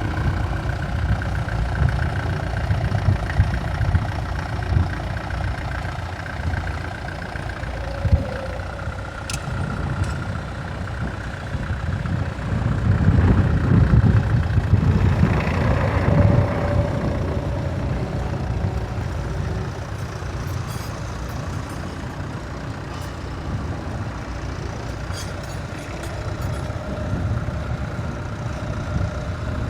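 Massey Ferguson 65 tractor engine running steadily under load while pulling a plough through the ground, growing louder about halfway through and then easing back.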